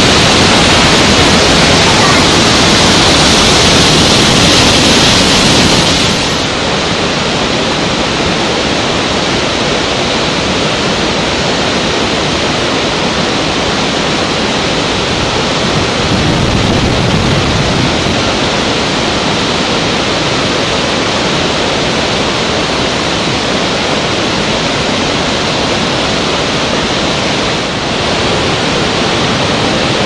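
Large waterfall: a steady, dense rush of falling water, dropping slightly in level at a change of shot about six seconds in.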